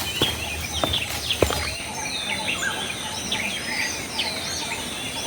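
Several birds calling at once in tropical rainforest, a dense mix of short chirps and whistles that rise and fall in pitch.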